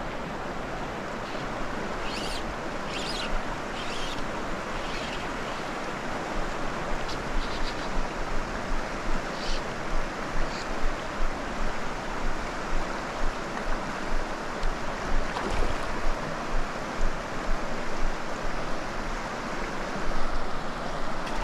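Rushing stream water, a steady wash of noise. From about six seconds in, soft thumps come at a steady pace, about three every two seconds.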